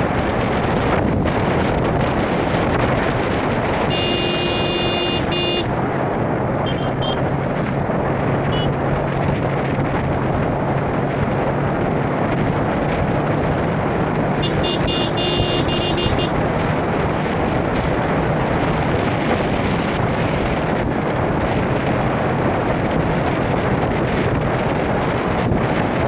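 Steady wind rush on the microphone and road noise of a vehicle riding along a paved road, with two short high-pitched horn blasts, the first about four seconds in and the second about eleven seconds later.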